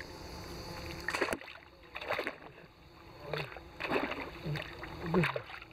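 Landing net swished and dunked through lake water, splashing in about six separate strokes, the net being rinsed out at the end of a fishing session.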